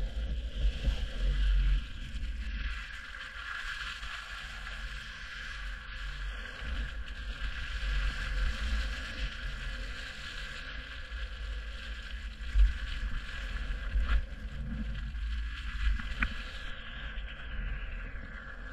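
Land Rover Freelander 2 driving slowly over rough dirt and mud tracks on General Grabber AT3 all-terrain tyres: a steady low wind rumble on the body-mounted microphone over tyre and track noise, with a few knocks as the wheel goes over bumps.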